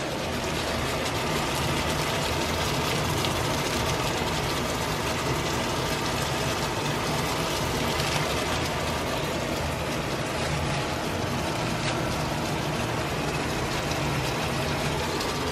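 Steady kitchen cooking noise: an even low hum under a broad hiss, from pots cooking on the stove, one of them with potatoes at the boil.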